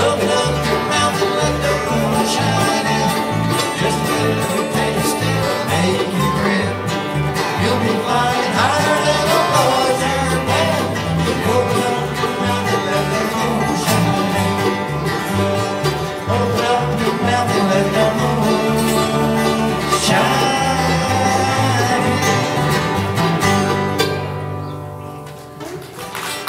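Bluegrass band playing the instrumental close of a song on banjo, dobro, mandolin and acoustic guitars, over stepping low bass notes. The band stops on a final chord near the end, which rings out briefly.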